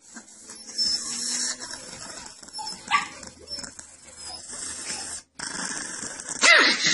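A small dog, a chihuahua, barking and yapping in short high-pitched calls. The loudest comes near the end, a call that rises and falls in pitch.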